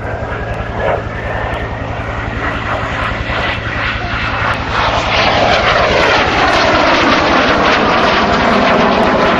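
Fouga Magister's twin Turbomeca Marboré turbojets whining as the jet makes a low pass, growing louder about five seconds in, with the pitch sliding down as it goes by.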